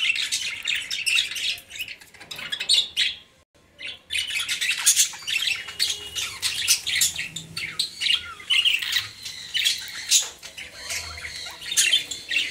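Budgerigars chattering and squawking in many quick, short, high calls, with a brief lull about three seconds in.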